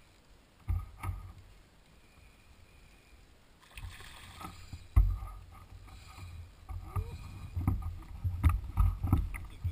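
Handling noise while a hooked European sea bass is played from a plastic pedal kayak: knocks and thumps against the hull and the clicking of a spinning reel being cranked. It is quiet at first with two knocks, then busier and louder from about four seconds in, with a sharp knock about five seconds in, while the fish splashes at the surface beside the kayak.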